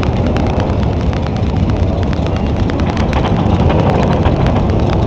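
Many motorcycle engines running and revving at once, a dense rumble with short sharp cracks throughout.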